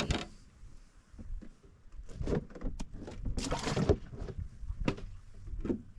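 Handling noise in a small fishing boat: scattered knocks and clicks against the hull, with two short rustling scuffs, the longer one about three and a half seconds in.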